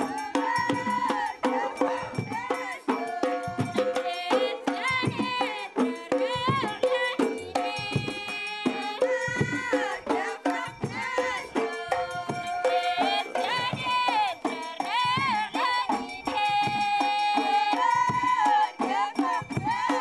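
Background music: a melodic line of held, bending notes over drum beats.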